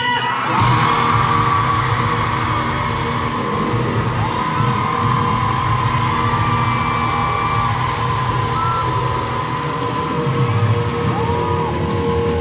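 A rock band playing live, loud through the venue's sound system, with long held notes sustained over the band.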